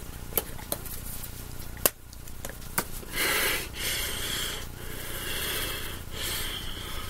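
Movement noise from a person signing close to a webcam microphone: a few sharp taps and clicks, then four hissing rushes of under a second each.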